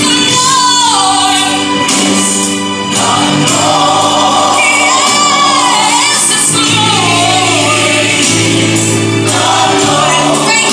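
Recorded gospel song with choir and lead vocals over a sustained bass backing, played loud.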